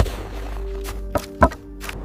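A handful of sharp knocks over background music with steady held tones; the loudest knocks come right at the start and about a second and a half in.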